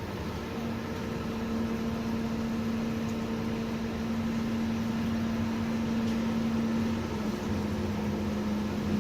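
Steady hiss of rain, with a low, even mechanical hum that sets in about half a second in and holds one pitch.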